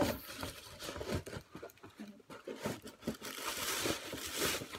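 Paper shopping bags rustling and crinkling in irregular crackles as a smaller inner bag is pulled out of a larger outer one, louder near the end.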